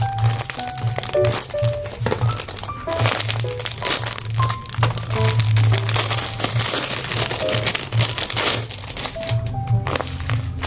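Paper crinkling and rustling in dense, irregular crackles, over background music with short melodic notes.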